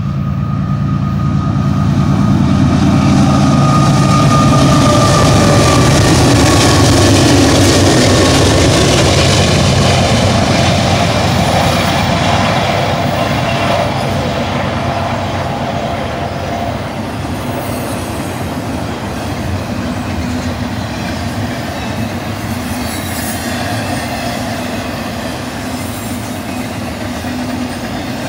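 BNSF double-stack intermodal freight train passing at speed. Its GE diesel locomotives, an ES44C4 leading two Dash 9-44CWs, run loudest in the first several seconds. Then the well cars roll by with a steady rumble and rattle of wheels on rail, and a thin wheel squeal comes and goes.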